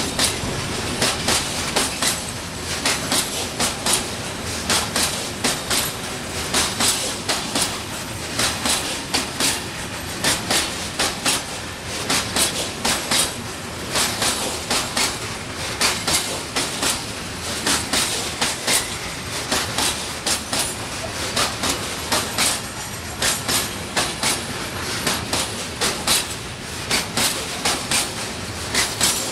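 Train wagons rolling past, their wheels clacking over rail joints in a steady repeating rhythm of short click groups about once a second, over a continuous rumble.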